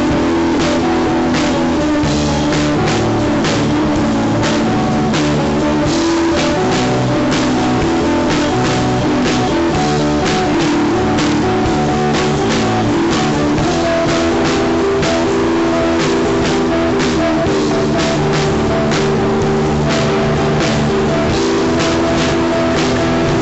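Rock music from a band: electric guitar chords over a drum kit, with regular drum and cymbal hits.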